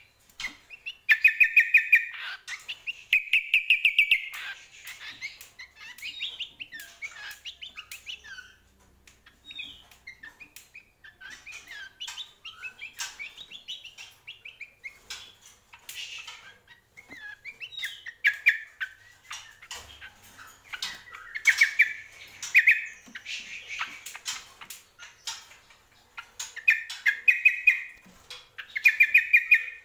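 A caged cucak kombo singing: loud, rapid trilled phrases repeated several times, with softer twittering chatter between them.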